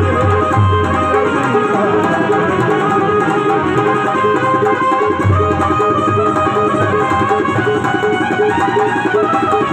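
Devotional bhajan music with no singing: sustained harmonium chords over fast hand-drum strokes.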